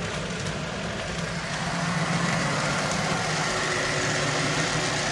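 HO-scale model train running along the track: a steady mechanical hum with rolling noise over it, a little louder about two seconds in.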